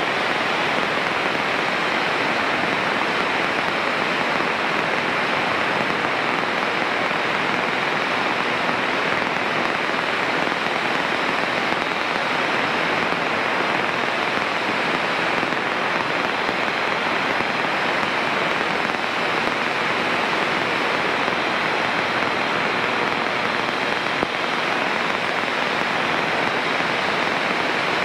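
Steady, unbroken hiss on a Cessna 152's cockpit headset audio during cruise flight.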